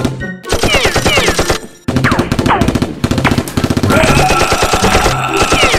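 Rapid automatic gunfire sound effects in fast bursts, broken by a short gap about two seconds in, with a few falling whistling tones among the shots.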